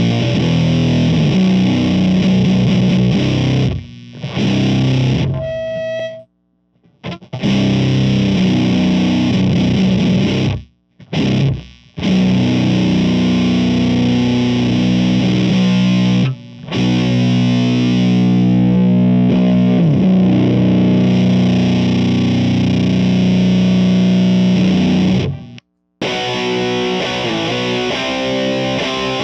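Electric guitar played through the Elder God fuzz pedal (a silicon Fuzz Face and Green Russian fuzz in one) into the clean channel of a Mesa Boogie amp: loud, heavily fuzzed doom riffs of low sustained chords. The playing stops briefly several times between riffs.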